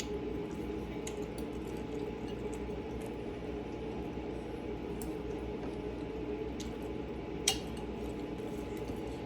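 Eating at a table: faint clicks of a utensil against a dish and one sharp clink about seven and a half seconds in, over a steady low hum.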